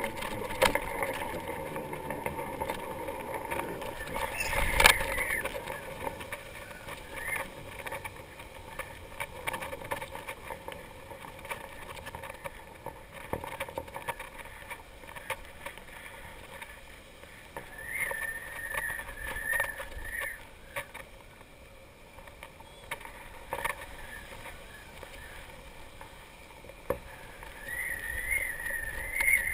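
Wind noise on a GoPro hanging from a kite line, with a wavering high hum that fades in and out. There is a sharp knock about five seconds in.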